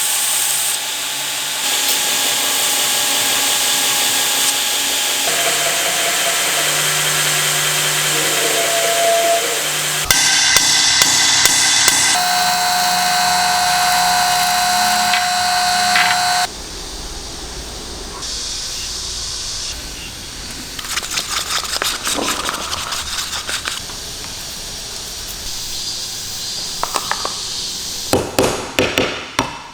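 Power tools at work on a steel knife blade in a run of short clips, each a steady whine at its own pitch, then from about 21 s irregular scraping and knocking strokes.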